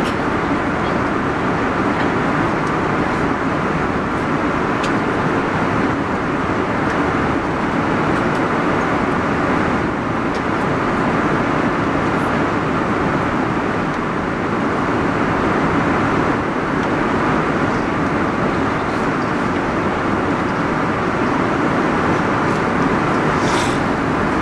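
Steady airliner cabin noise in flight: an even rush of engine and airflow noise.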